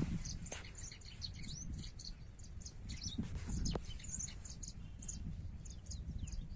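Small birds chirping, many short high chirps and quick downward-sliding notes scattered throughout, over a steady low rumble.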